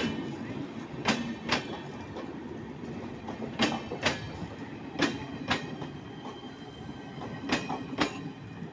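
Passenger train coaches rolling past at moderate speed: a steady rumble of steel wheels on rail, broken every one to two and a half seconds by a pair of sharp clacks, half a second apart, as the two axles of each bogie cross a rail joint.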